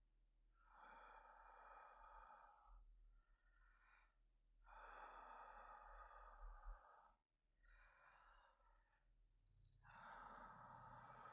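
A man's slow, heavy breathing, faint and close to the microphone: long drawn breaths a few seconds apart, like someone drowsy in bed.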